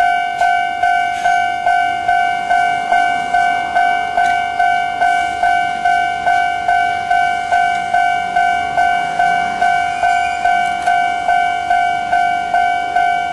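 Japanese railway level-crossing warning bell ringing: a loud electronic ding repeating steadily about twice a second, each strike fading quickly.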